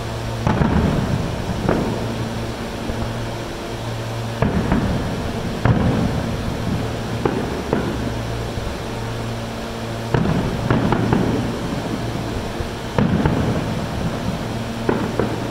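Aerial fireworks going off: about a dozen booms with crackle, often in quick pairs or threes, spaced a second or a few seconds apart. A steady low hum runs underneath.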